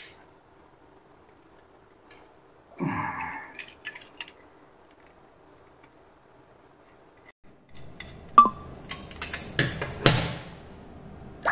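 Scattered clicks and light metallic clinks from handling a laptop hard disk's metal casing and a small screwdriver. A cluster of sharper clinks, one with a short ring, comes as the drive is laid down on a table.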